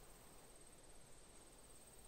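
Near silence: faint background hiss with a faint, steady high-pitched tone.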